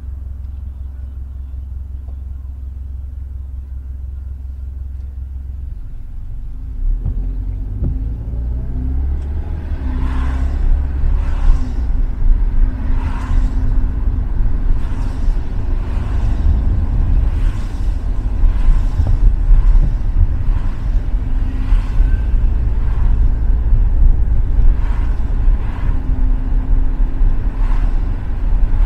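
Car driving on a wet road, heard from inside: a low steady rumble while stopped, growing louder as the car pulls away about six seconds in. Tyre noise on the wet road follows, with a regular swish about once a second.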